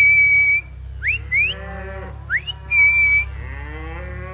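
A person whistling to call cattle, three times, each whistle a quick upward slide and then a held high note, while cows moo in answer, the longest moo near the end.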